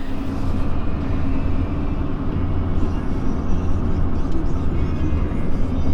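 Freshly installed Duramax LMM 6.6-litre turbodiesel V8 running steadily as the truck drives, a constant low drone.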